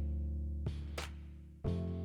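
Background music with a plucked, guitar-like sound: low held notes that fade, and a new note struck about one and a half seconds in. There are two faint clicks in the middle.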